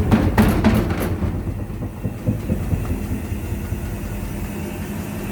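IFB washing machine running with a loud rumble and a steady hum, with a burst of sharp knocks and clatter in the first second, then rumbling on. The uploader puts the noise down to a suspension problem in the machine.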